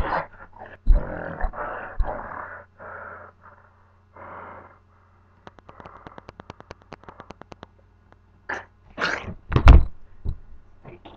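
Rough-and-tumble scuffle noises: grunts and growl-like vocal sounds, then a rapid clicking rattle of about ten clicks a second lasting about two seconds. Near the end come loud scuffling and a heavy thump.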